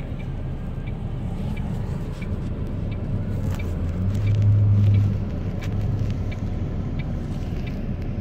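Truck diesel engine idling, heard from inside the cab, with a steady low hum that swells briefly about halfway through.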